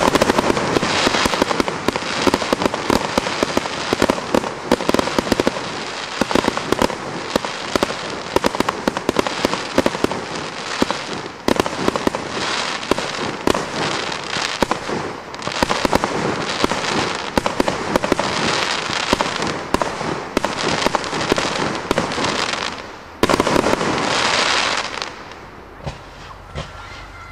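Aerial firework display: a dense, loud barrage of shell bursts, sharp bangs and crackling stars. A fresh loud surge comes near the end, and then the barrage dies away.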